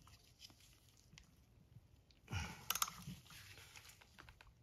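Wrenches and a pulley puller being handled on a power steering pump: faint scattered metal clicks, with a brief louder scrape and a couple of sharp clicks about halfway through.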